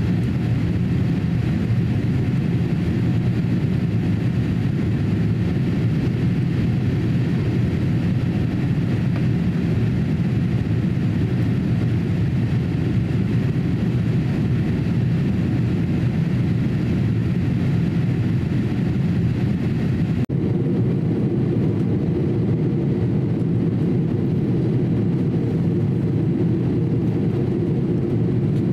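Steady cabin noise inside a Boeing 787-8 climbing out after takeoff: the low rumble of its GEnx engines mixed with the rush of air past the fuselage. About twenty seconds in, the sound breaks off for an instant where the recording jumps, and the same steady noise carries on slightly duller.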